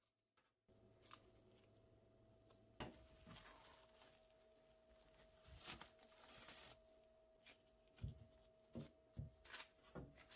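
Faint handling sounds: scattered rustling, crinkling and light taps, a few slightly louder swishes, over a steady faint hum.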